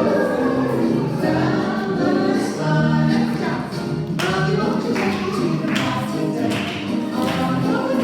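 A song sung by several voices together over music, with sharp percussion strikes on a steady beat joining about halfway through.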